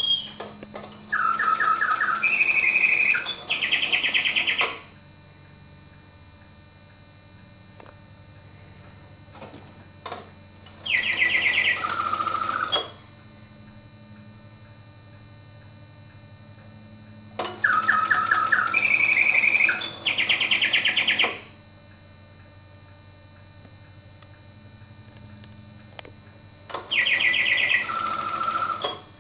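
Bontems clockwork automaton singing bird, ca. 1890, whistling its mechanical birdsong through a bellows-blown piston whistle: four phrases of rapid trills that jump between fixed pitches, with pauses of several seconds between them. A faint steady hum fills the pauses.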